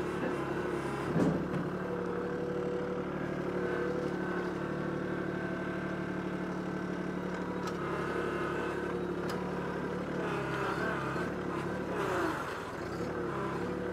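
Kubota B2261 compact tractor's three-cylinder diesel engine and loader hydraulics running steadily under load while the front-loader ripper is worked into a tree stump. Its note shifts slightly around eight and again around eleven seconds in, with a couple of faint clicks.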